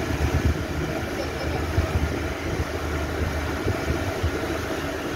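Small tour motorboat's engine running steadily under way, with a continuous low hum and water noise along the hull, and a few irregular low bumps in the first couple of seconds.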